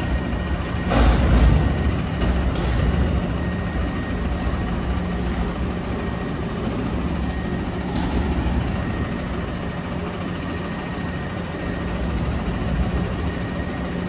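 Peterbilt front-loader garbage truck idling with a steady hum and a faint high whine, with a clunk about a second in and a lighter knock near eight seconds.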